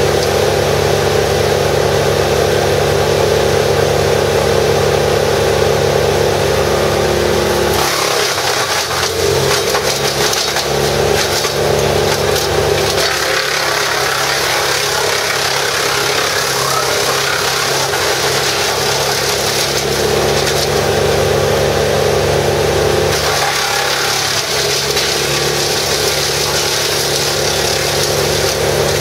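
Vermeer BC1000XL brush chipper running at speed, then chipping branches fed in by hand. From about eight seconds in, the engine note drops under load and a dense crackling hiss of wood being cut and chips blowing out fills in. It eases briefly a little past twenty seconds and starts again a few seconds later.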